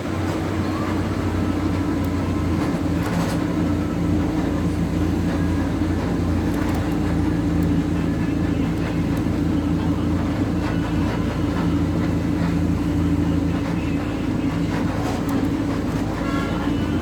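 Steady running drone of a moving vehicle, with a low even hum and faint scattered rattles.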